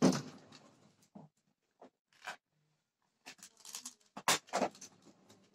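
Handling noise of small hard plastic and metal items: a sharp knock right at the start, a few scattered clicks, then a run of clicks and rattles in the second half, as of a small plastic box of screws being picked up.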